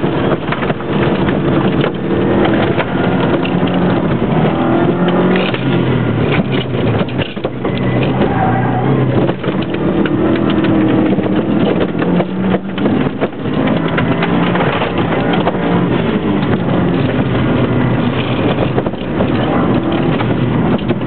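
Racing car's engine heard from inside the cabin, driven hard around a dirt track, its pitch rising and falling with throttle and gear changes. Short rattles and knocks come from the car over the rough surface.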